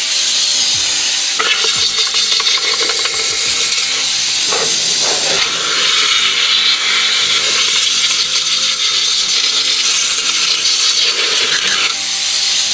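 Compressed air from a blow gun on an air hose, a loud steady hiss as it blows debris out of a fuel pump housing.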